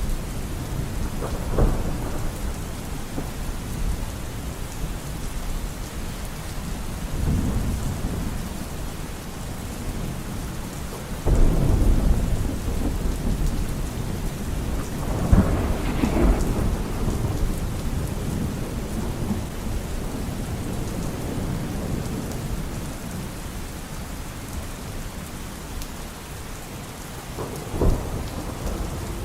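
Steady rain falling, with thunder rumbling through it. Sharp claps come about a second and a half in and near the end, and a loud clap about eleven seconds in rolls on into a second crack a few seconds later.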